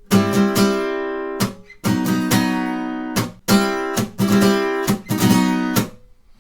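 Acoustic guitar strummed in the gallop pattern: quick muted scratch strokes followed by an accented chord that rings out, four ringing chords about a second and a half apart. These are barre chords, C shifted down one fret to B.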